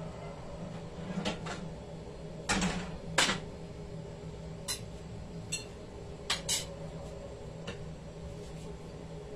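Kitchen things being handled: scattered short knocks and clicks, the two loudest about two and a half and three seconds in, over a steady low hum.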